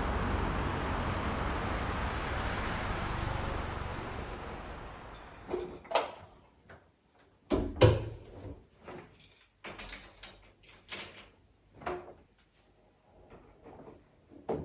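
A steady rushing noise fading out over the first few seconds, then a string of irregular knocks and clatters of objects being handled, the loudest about eight seconds in.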